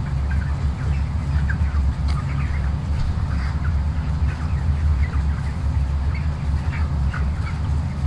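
A flock of broiler chicks making many short, scattered calls over a steady low hum. The flock is one that the farmer presents as showing sneezing and gurgling, the respiratory sounds he takes for a sign of CRD or a throat infection.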